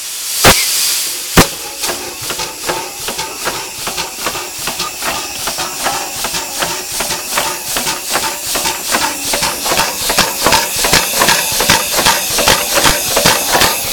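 Antique 15 hp Acme steam engine, running on compressed air and freshly oiled after more than 50 years idle, puffing its exhaust in an even rhythm of about three chuffs a second. It opens with two sharp knocks and a hiss of air in the first second and a half, and the chuffing grows louder after about ten seconds.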